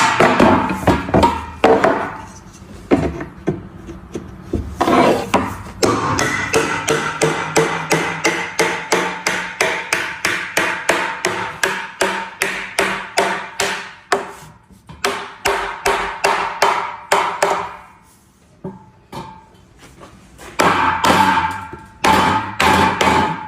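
A hammer striking wood over and over at about three blows a second, each with a slight ring, in several runs broken by short pauses.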